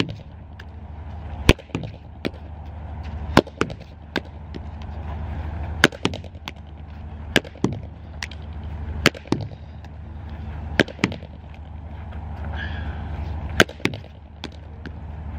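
Hurley striking a sliotar against a concrete hurling wall again and again during quick wall drills: sharp cracks in close pairs, a fraction of a second apart, about every one and a half to two seconds, over a low steady hum.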